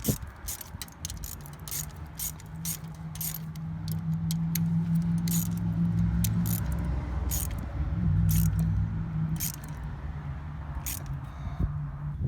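Metal hand tools clicking and scraping on car battery terminal hardware in irregular sharp ticks, over a steady low hum that swells in the middle.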